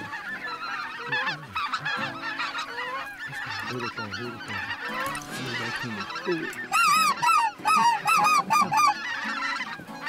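A flock of geese honking: many overlapping calls, then a run of about eight loud, close honks about seven seconds in.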